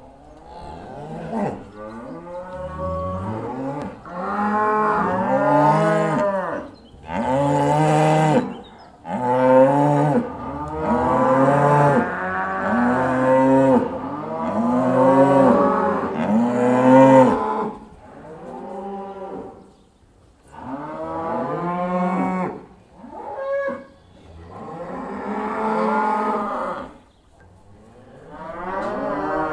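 A herd of cows mooing as they come back into the barn: long, overlapping moos, one after another, with a few short lulls.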